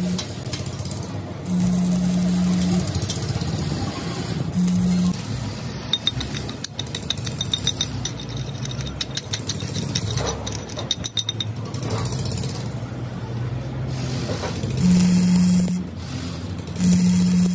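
Stick (arc) welding building up broken teeth on a steel gear: a buzzing hum with arc crackle that starts and stops several times as the arc is struck and broken.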